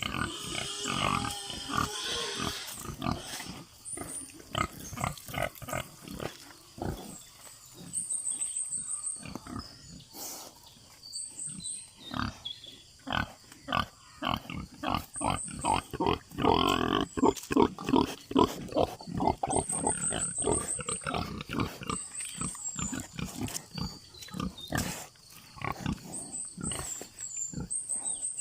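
Pigs grunting in short, frequent grunts, busiest about halfway through. A small bird's high trilled chirp repeats every few seconds over them.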